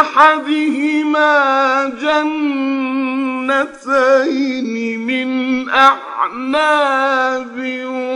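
A man's voice reciting the Quran in melodic tajweed style, holding long notes with wavering ornamented turns, broken by a few short pauses between phrases.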